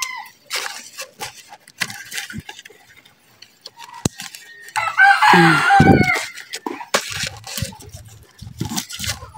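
A rooster crowing once, a loud call lasting about a second and a half near the middle. Around it come scattered small clicks of scissors snipping at bonsai roots.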